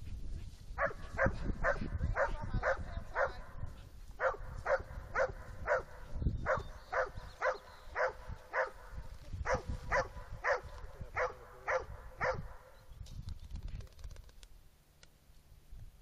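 A dog barking repeatedly at about two barks a second, in several runs with short pauses, stopping about twelve seconds in. A low rumble, like wind on the microphone, runs underneath.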